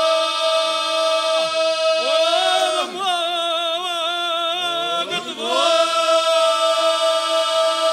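A group of men singing a traditional Serbian folk song a cappella. A low drone note is held throughout. The upper voices hold a long chord, move through a wavering, ornamented passage in the middle, then settle back onto a sustained chord.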